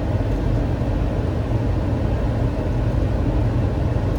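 Boeing 737 flight deck noise on short final before touchdown: a steady low rumble of airflow and engines, even throughout.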